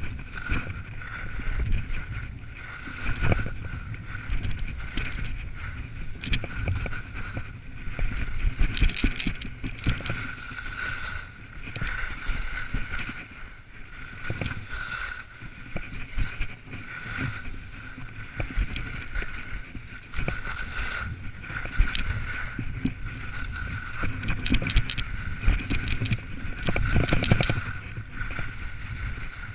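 Wind buffeting a GoPro's microphone while skiing downhill, with skis running and scraping over packed snow; sharper scrapes stand out now and then, more of them near the end.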